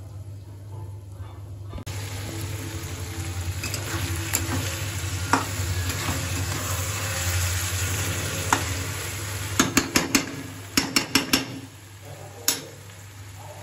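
Chicken pieces frying in masala in a steel kadhai: a loud sizzle starts suddenly about two seconds in while a metal spatula stirs and scrapes, knocking against the pan in a quick run of clanks near the end as the sizzle dies down.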